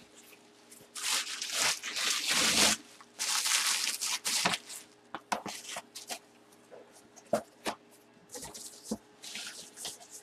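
Plastic packaging and a cardboard box being handled: three stretches of loud rustling and crinkling, with scattered light taps and knocks in between.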